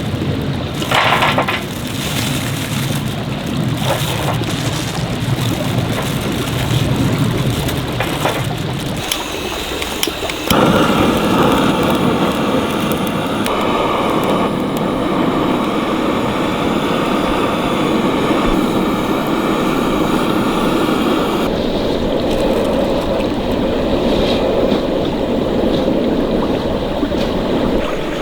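Stream water flowing with a steady rushing sound, with a few light clicks in the first ten seconds. About ten seconds in the water sound changes abruptly to a louder, fuller rush.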